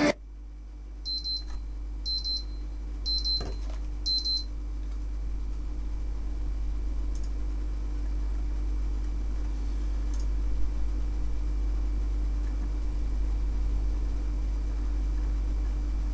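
Four short high-pitched electronic beeps about a second apart, each a quick double pulse, then a steady low electrical hum with faint hiss.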